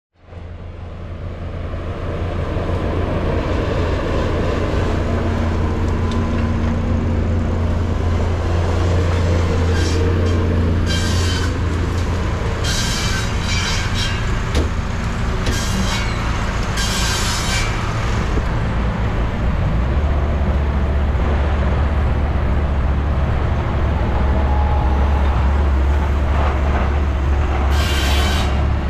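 Steam-engine-powered sawmill running: a steady low drone that drops slightly in pitch about two-thirds of the way through, with short hissing bursts several times in the middle and again near the end.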